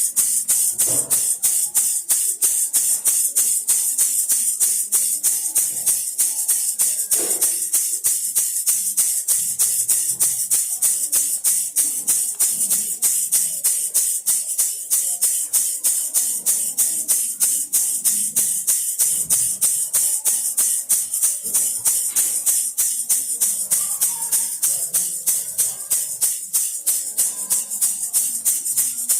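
Baby rattle shaken in a fast, even rhythm, each shake a bright, hissy rattle of small beads.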